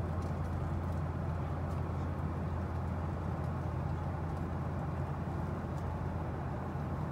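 Steady cabin noise of a Boeing 737-800 in cruise: a low, even drone of engines and airflow, with a few faint clicks.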